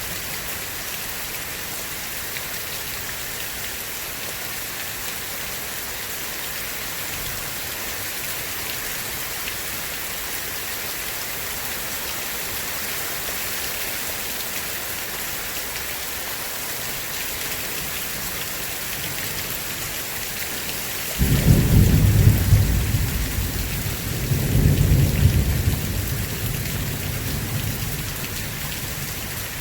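Steady heavy rain hissing, with a sudden deep thunder rumble breaking in about three-quarters of the way through, swelling again a few seconds later and then fading.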